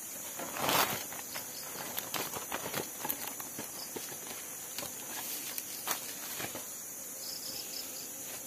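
Steady high-pitched chorus of night insects, with scattered clicks and knocks of handling close by and a louder rustle just under a second in.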